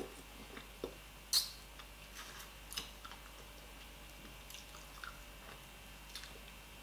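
A person eating fish and fufu with the fingers: chewing with scattered sharp mouth smacks and clicks, the loudest about a second and a half in.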